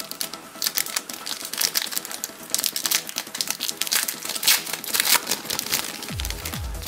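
Foil trading-card pack wrapper crinkling and crackling as it is handled and torn open. About six seconds in, electronic music with a thudding kick drum starts.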